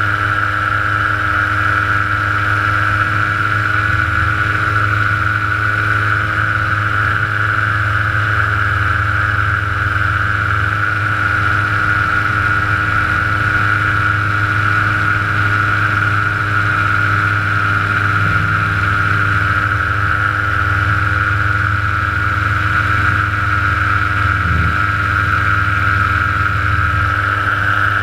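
Steady drone of a small aircraft engine and propeller running at constant power in flight, with no change in pitch or level.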